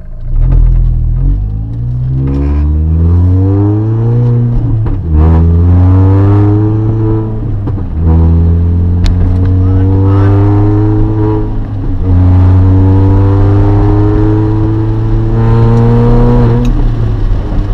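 Modified Mini Cooper's engine and exhaust, heard from inside the cabin, pulling away at part throttle and accelerating through the gears: the revs climb in each gear and fall back at four upshifts. The owner says the engine, badly in need of a tune, runs choppy and cuts at this middling throttle.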